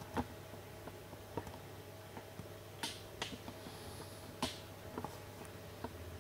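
Camcorder handling noise: irregular sharp clicks and taps from fingers on the camera body, about seven in six seconds, over a steady low hum.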